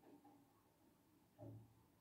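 Near silence, with one brief faint sound about one and a half seconds in.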